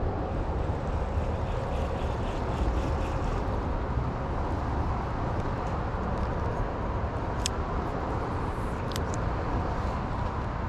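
Steady rumble of road traffic, with a couple of short, sharp ticks in the second half.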